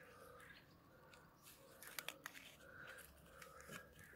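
Near silence: faint rustling and a few soft clicks of physalis leaves and papery husks being handled.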